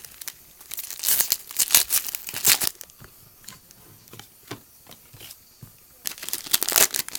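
A baseball card pack's wrapper being torn open and crinkled, in two bursts of rustling: one about a second in and one near the end, with small clicks of handling between them.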